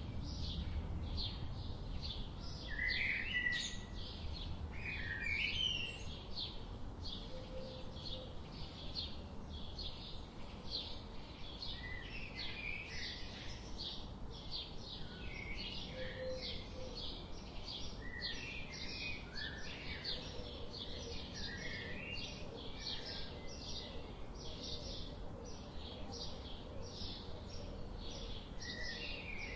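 Birds singing and calling together: a rapid, unbroken stream of short high chirps, with lower warbling phrases breaking in now and then, over a faint low background noise.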